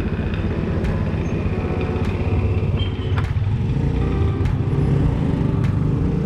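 Street traffic with a motorcycle's engine running close by as it moves off ahead, over a steady low rumble. A few faint ticks come now and then.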